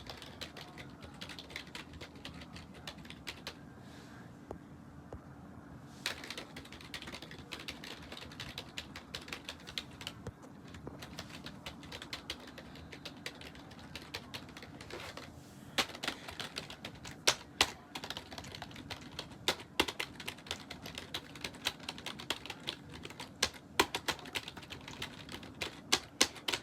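Typing on a computer keyboard: rapid, uneven key clicks, pausing briefly about four seconds in, with sharper, louder keystrokes in the second half.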